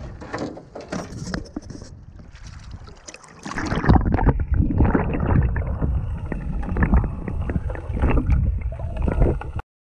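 River water splashing and sloshing at the camera. About three and a half seconds in, the camera goes under the surface and the sound turns to a loud, muffled underwater rumble of moving water, as a landing net draws in an American shad. The sound cuts off abruptly near the end.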